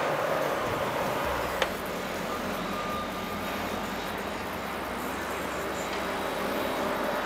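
Boat engines running steadily, with a single sharp click about a second and a half in.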